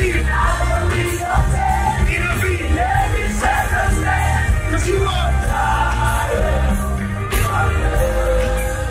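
Live band playing with heavy bass, a male lead vocalist singing over it into a microphone through the PA.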